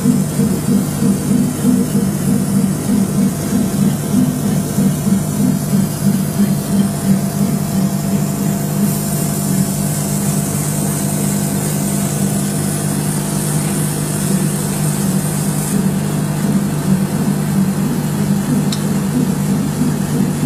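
Laser cutting and engraving machine running as it cuts: a steady low hum that flutters rapidly for the first several seconds, then evens out. A high hiss joins from about nine seconds in and stops suddenly about seven seconds later.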